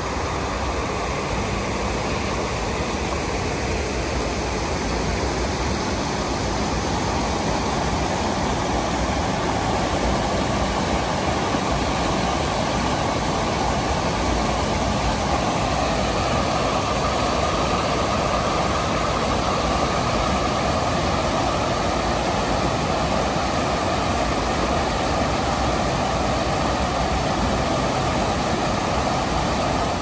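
Forest stream flowing, a steady rush of water with no breaks.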